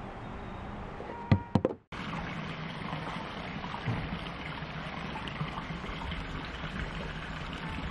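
Steady outdoor background rush, with three sharp knocks about a second and a half in, then a brief dropout, after which the rush resumes slightly louder.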